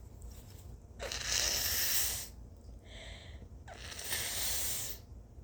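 A person blowing a congested nose hard into a tissue, two long forceful blows with a brief whistling note between them.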